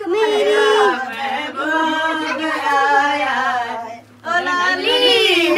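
Several voices singing a song together, with a brief break about four seconds in.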